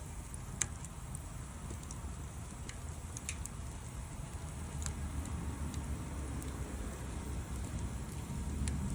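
Wood fire crackling, with sparse sharp pops, the loudest about half a second in. A low rumble builds in the second half.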